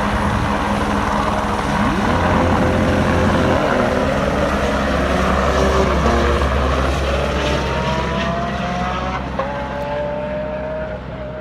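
Lamborghini supercar engine accelerating hard, its pitch climbing and dropping back at upshifts about three and a half and nine seconds in, over the steady low drone of a helicopter.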